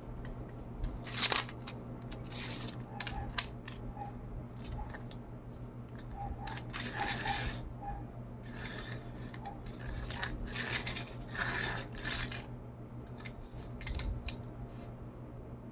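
A toy truck being handled and played with: scattered clicks and taps and several short scraping rattles, over a steady low hum.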